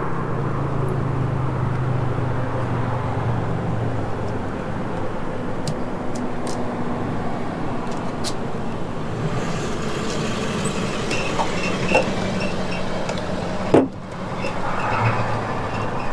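Steady outdoor traffic and vehicle noise, with a low engine hum in the first few seconds. A few light clicks come as a plastic louvered vent cap is pressed into place on the bus's side panel.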